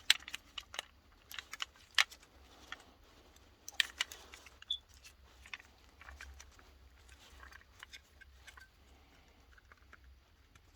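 Sharp plastic clicks and knocks as a Makita 18 V battery pack's resoldered cell block is pressed into its plastic case, thick for the first four seconds or so and then sparser: a trial fit that does not go together.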